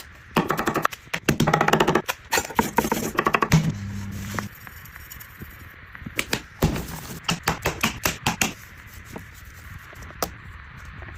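Knife chopping rapidly on a cutting board, a dense burst of quick strokes, followed later by separate, slower knocks.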